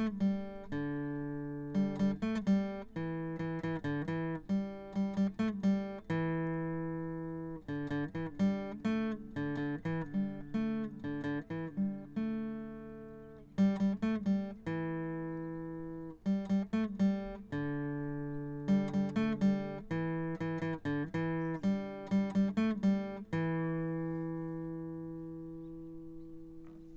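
Solo acoustic guitar music: quick clusters of plucked notes alternate with chords left ringing and slowly dying away. The final chord rings out and fades near the end.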